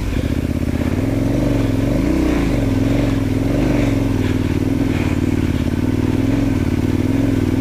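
Motorcycle engine running steadily while the bike is ridden, its pitch rising and falling slightly, with a small rise about two seconds in.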